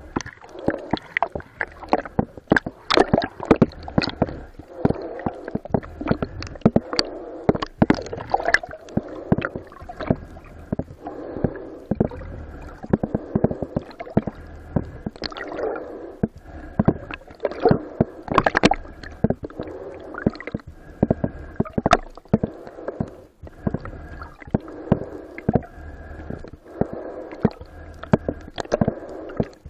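Water gurgling and sloshing close to the microphone, with frequent sharp clicks and knocks throughout.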